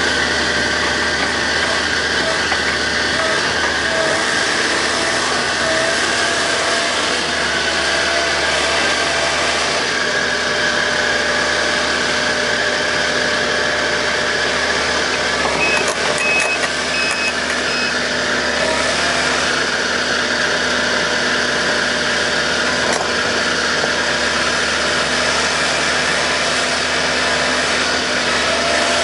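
Link-Belt 160LX excavator's diesel engine running steadily at one speed. About halfway through, four short high beeps sound in quick succession.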